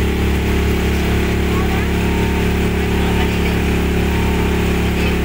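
Motorboat engine running steadily at cruising speed, a constant low hum with the hiss of the hull moving through water.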